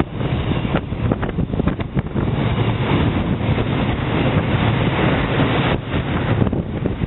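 Loaded container wagons of a freight train rolling past close by: a steady rumble and rattle of steel wheels on rail, with occasional sharp clacks in the first two seconds.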